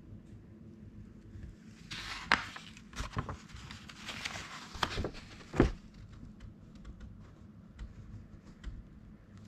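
Pages of an old 1960s paper magazine handled and opened by hand. Dry paper rustles and crinkles from about two seconds in, with sharp crackles; the loudest comes just before the rustling stops. A few light paper ticks follow.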